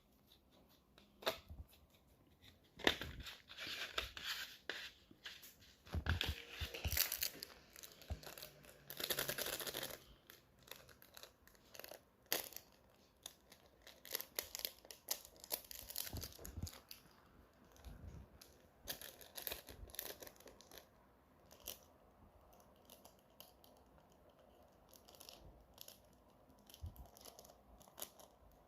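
Paper craft handling: paper being torn, crinkled and snipped in irregular bursts, with one longer tearing stretch about a third of the way in.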